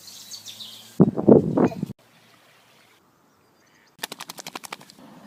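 A beagle puppy rustling through a pile of loose hay, then shaking its head hard, its ears flapping in a fast rattle of about a dozen slaps in a second.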